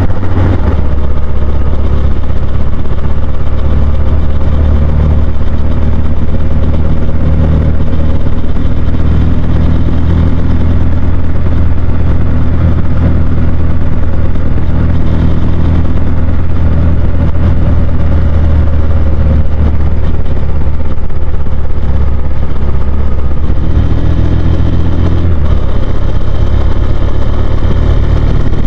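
Husqvarna Svartpilen 401's single-cylinder engine running continuously. Its note shifts in pitch a few times, notably about 23 and 25 seconds in.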